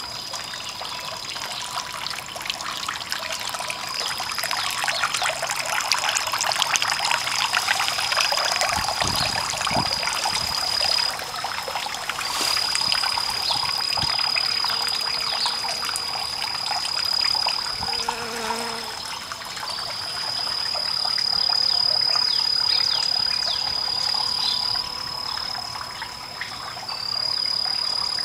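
Water trickling and splashing in a small tiered garden fountain, an irregular patter throughout. Over it runs a steady high-pitched insect trill that breaks off briefly every few seconds.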